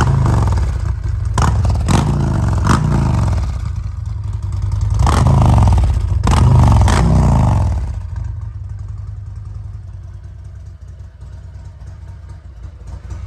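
Harley-Davidson Road Glide Special's 131-cubic-inch V-twin running through Rinehart mufflers: about five sharp throttle blips that each rise and fall back, then the engine settles to a steady idle for the last five seconds.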